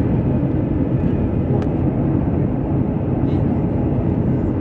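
Steady low rumble of a jet airliner's engines and rushing airflow, heard from inside the passenger cabin.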